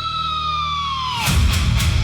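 Symphonic dark metal instrumental intro: a single high held lead note slides downward and fades about a second in, then a heavy low riff and drums come in loudly.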